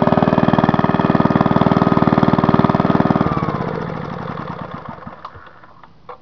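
1945 Briggs & Stratton Model N single-cylinder engine running steadily, then shut off with the kill switch on its shroud about three seconds in. The firing stops and the engine coasts down to a stop, with a small click near the end.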